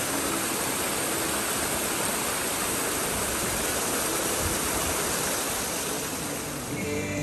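Rushing water, a steady full hiss like a waterfall or fast mountain stream, with no break or change.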